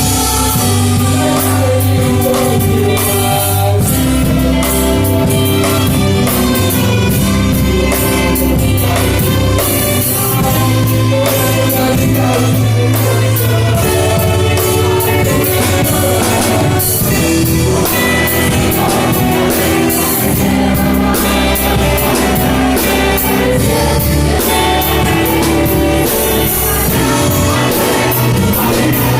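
Church youth choir singing a Portuguese-language gospel song, accompanied by an orchestra and drums keeping a steady beat.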